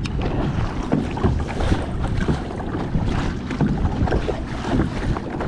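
Gusty wind buffeting the microphone with a low rumble, mixed with choppy water lapping against a kayak's hull.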